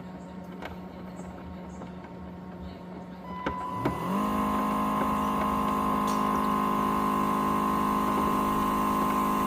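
Motor in a Dreame X50 robot vacuum's base station: a steady low hum, then about three and a half seconds in a motor spins up with a rising whine and runs loud and steady at a high pitch. This is the mop-washing cycle of a dock whose washboard fills with water and won't drain.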